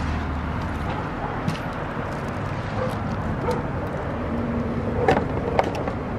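Steady outdoor background noise with a few light clicks and taps; the sharpest comes about five and a half seconds in.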